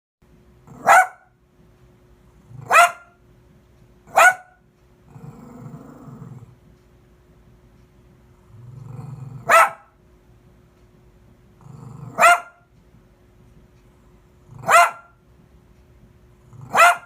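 A dog barking: seven sharp single barks spaced one to two and a half seconds apart, with low growling between some of them.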